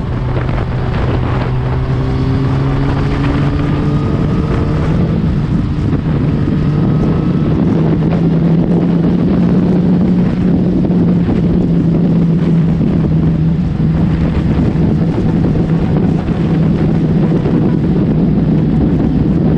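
Suzuki GSX-R1000 inline-four with an Akrapovic full exhaust running under way, its steady engine note stepping up in pitch about a third of the way through, under heavy wind noise on the microphone.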